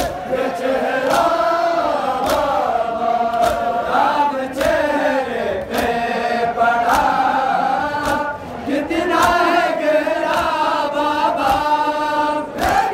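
A group of mourners chanting an Ashura nauha (mourning lament) together, with a sharp beat about once a second keeping time.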